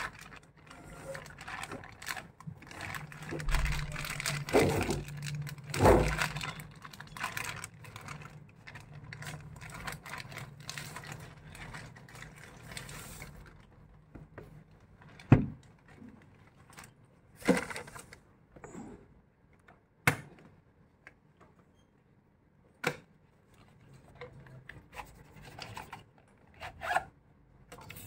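A plastic courier mailer being torn open and rustled for roughly the first 13 seconds, followed by a handful of separate sharp clicks and taps as a cardboard box and a plastic eyeglasses case are handled.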